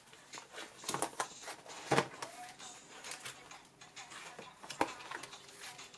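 Plastic sleeve pages of a ring binder being handled and turned: rustling and crinkling of the plastic with a few sharp clicks, the loudest about two seconds in.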